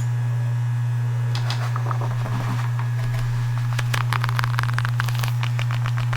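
A steady low background hum, the loudest thing throughout, with light crackling, tapping and scratching from an object being handled starting about a second in and thickest around four to five seconds.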